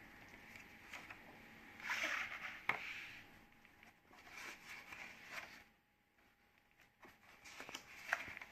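Hardcover picture book being opened and its pages turned by hand: faint paper rustles and soft knocks of the cover, in a few separate bursts, the last a page turn near the end.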